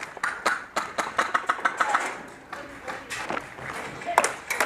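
Gas blowback airsoft rifles firing: a fast string of sharp cracks over the first two seconds, then a few scattered shots, the loudest about four seconds in.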